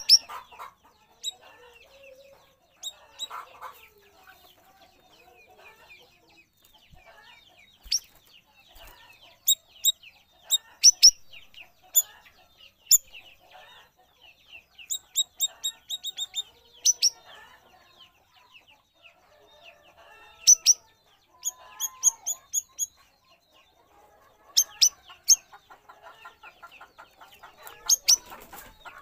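Stripe-throated bulbul (cucak rawis) calling in bursts of short, sharp high notes, often in quick runs of three or four, over a faint continuous twittering.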